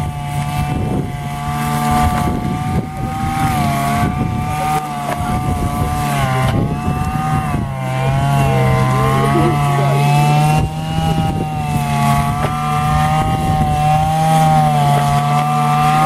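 Petrol brush cutter with a string trimmer head running at high revs while cutting tall grass: a loud, steady engine whine that wavers slightly in pitch.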